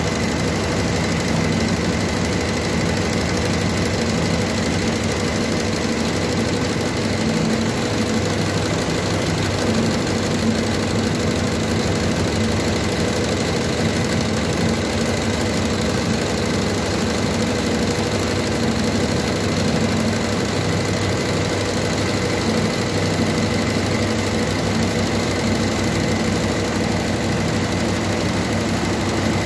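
Multi-head computerised embroidery machine running, its needles stitching a cross-stitch pattern. The sound is a steady, rapid mechanical rhythm with a constant hum underneath, unchanged throughout.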